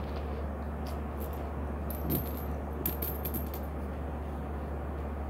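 Pennies dropped onto carpet, clinking against one another in a few small clusters, most of them about two to three and a half seconds in. A steady low hum runs underneath.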